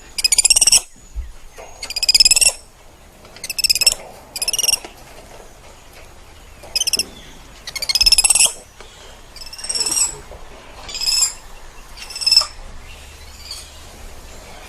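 Spider monkey giving a series of high-pitched, wavering chirping calls, about ten in all, each under a second long and coming every second or two, some louder and some fainter.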